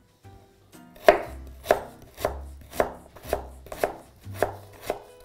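Knife slicing through a peeled beetroot and striking a plastic cutting board: a steady run of about eight chops, roughly two a second, starting about a second in.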